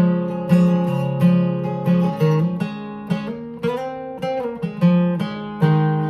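Acoustic guitar strummed in a steady rhythm, each chord ringing on until the next stroke comes about every two-thirds of a second; an instrumental passage of a song with no singing.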